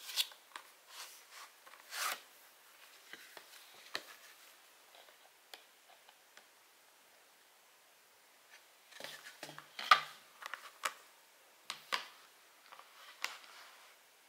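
Cardboard slipcover rubbing as a plastic Blu-ray case slides out of it, then the case and slipcover handled on a table: soft scrapes and scattered light taps and clicks, with a quiet spell midway and a cluster of sharper taps later on.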